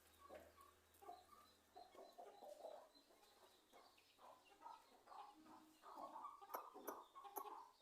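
Parrot-beak aseel chicken clucking faintly, a string of short low calls that grow a little louder near the end, with a few sharp clicks among them.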